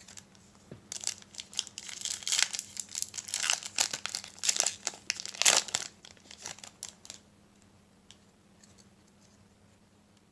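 A Yu-Gi-Oh booster pack wrapper crinkling and tearing as it is opened by hand. The crackling starts about a second in, peaks with a sharp rip a little past the middle, and fades to a few faint ticks after about seven seconds.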